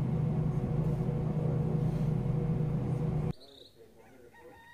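Steady jet airliner cabin drone while taxiing, a low rumble with a few steady tones. About three seconds in it cuts off suddenly to a much quieter outdoor ambience with faint high chirps.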